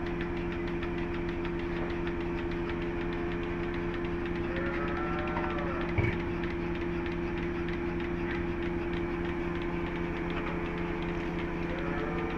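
A machine's motor running steadily with an even, fast pulse, while a cow lows once about five seconds in; a short sharp knock follows just after.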